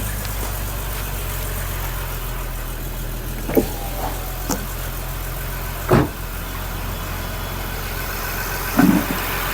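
Skoda Superb's VR6 six-cylinder engine idling steadily on a cold start, with a few sharp clicks, the loudest about six seconds in. The engine is throwing misfire faults with a fluctuating idle, which the mechanic traces to a badly leaking PCV valve.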